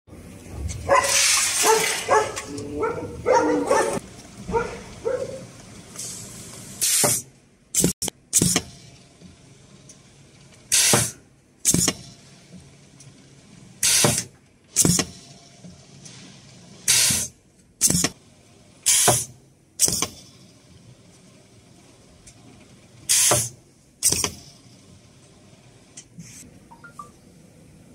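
Pneumatic mooncake pressing machine cycling: short sharp hisses of air venting from the press cylinder as the stamp goes down and back up, mostly in pairs about a second apart, starting about seven seconds in. Voices talk in the first few seconds.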